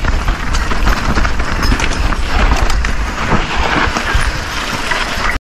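Mountain bike rolling down a rough dirt trail: tyres crunching over dirt and rocks, with a steady clatter of small knocks from the bike, and wind rumbling on the helmet-camera microphone.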